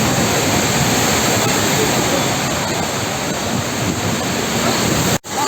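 Heavy storm rain pouring down, a steady loud rush of noise that cuts out for an instant near the end.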